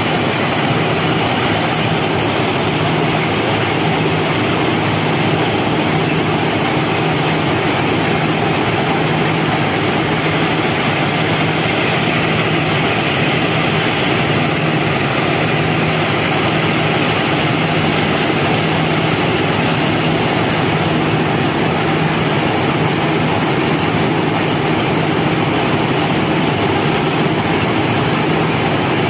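FRM-85F formation rehabilitation machine working on the track: a steady, loud machinery drone with a low engine hum underneath.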